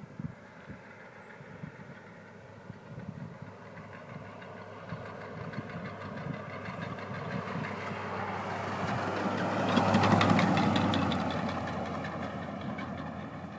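1970 Chevrolet El Camino driving past, growing louder to a peak about ten seconds in and then fading away. Through the engine and tyre noise comes a rapid repeated knocking, loudest as it passes, from loose lug nuts on the front driver's-side wheel.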